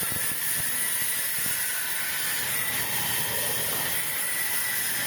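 Sawmill saw cutting through wood: a steady hissing noise with a thin, high whine held at one pitch.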